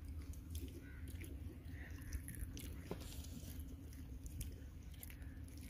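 Children biting and chewing crispy french fries: irregular small crunches and clicks over a low rumble.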